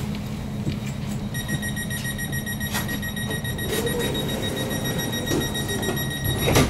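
Door-closing warning beeper on a Stadler Flirt (HSL Sm5) electric commuter train: a high-pitched beeping starts about a second and a half in and sounds for about five seconds over the steady hum of the train's onboard equipment. The doors then shut with a loud thump near the end.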